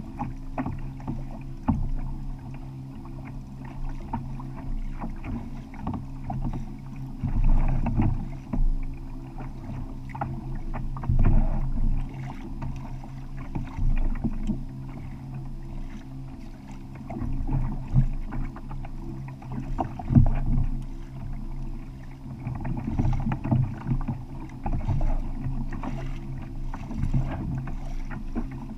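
Sea water slapping and knocking against a fishing kayak's hull, in irregular surges over a steady low hum.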